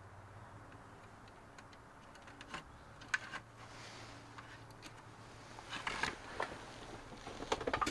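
Faint, scattered small clicks and light rattles of a plastic dash warning-light panel being handled and turned over in the hand.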